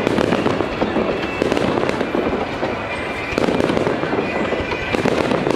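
Fireworks going off in quick succession: a continuous din of shell bursts and crackle with no quiet gaps.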